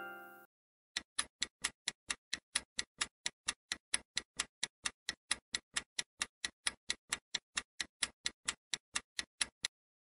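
Countdown timer sound effect: a clock-like tick repeating evenly about three to four times a second, starting about a second in and stopping just before the end. The last of a chime dies away at the very start.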